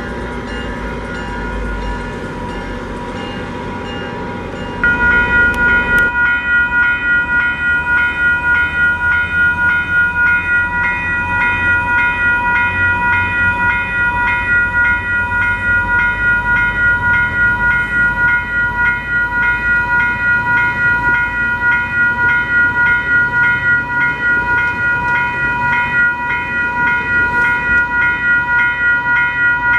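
A passing train's rumble on the rails, then about five seconds in a grade-crossing warning bell starts up. The bell rings in a steady, rapid clang and stays the loudest sound while the train pulls away.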